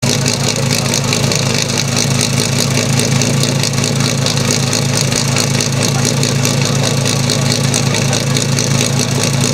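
Engine idling steadily with an even, fast beat.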